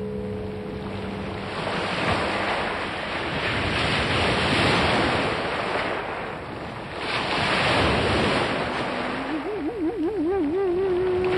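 Surf: a rushing noise that swells and ebbs in slow surges, one every two to three seconds. Held pitched notes fade out about a second and a half in. Near the end a wavering pitched tone enters and settles into a long held note.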